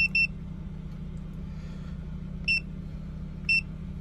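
Autophix 7910 handheld scan tool beeping as its keys are pressed: one short high beep at the start, then two more about a second apart near the end. A steady low hum from the car runs underneath.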